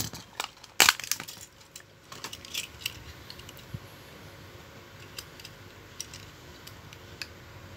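A 1/64 diecast toy pickup being taken from its plastic blister pack and handled: a sharp click about a second in, then a run of light clicks and taps that thin out.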